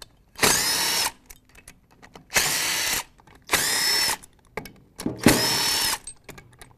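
Power tool spinning out the aluminium bell-housing bolts of a transmission case in four short whining bursts, each under a second, with light clicks between them.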